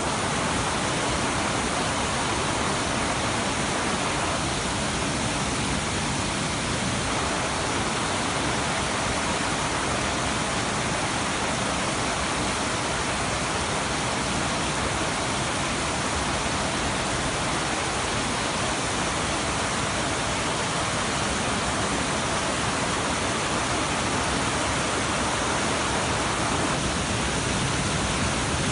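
Torrential rain pouring down with floodwater rushing through the street: a steady, even rush of water that does not let up.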